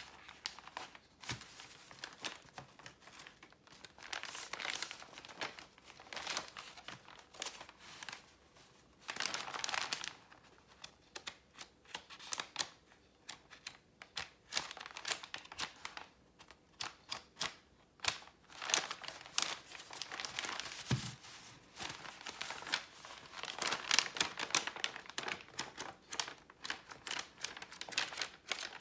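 Sheets of dyed paper being handled, crinkling and rustling in irregular bursts.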